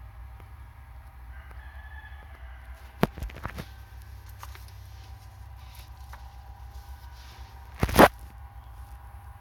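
Background noise with no speech: a steady low hum, a faint pitched call about two seconds in, a few sharp clicks about three seconds in, and one short loud knock about eight seconds in.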